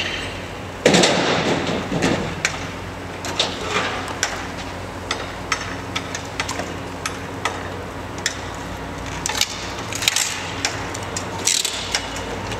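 Old windows being knocked out of a hall's window openings: a crash lasting about a second near the start, then scattered sharp knocks and cracks.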